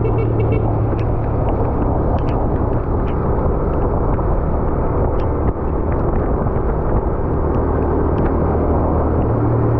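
Vehicle engine running at a steady pace with a constant low hum, under a wash of road and wind noise while on the move.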